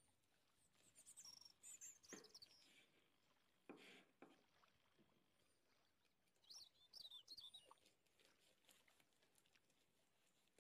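Near silence, with faint high chirps in two short runs, about a second in and again past the middle, and a couple of soft knocks.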